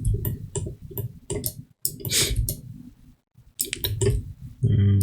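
Computer mouse and keyboard clicking irregularly, several clicks a second, as faces are selected by hand. There is a short hiss about two seconds in and a brief low hum near the end.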